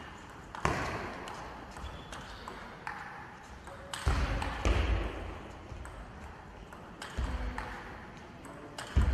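Table tennis rally: the ball clicks back and forth off the bats and the table. Louder thuds and crowd noise swell about four seconds in and again near the end.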